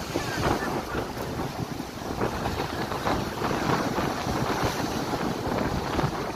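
Ocean waves breaking and washing up the shore, with wind buffeting the microphone.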